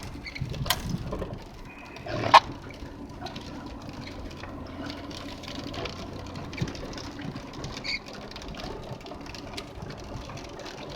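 Heavy rain pattering on a car while it drives, with steady engine and road hum inside the cabin and a couple of sharp knocks in the first few seconds.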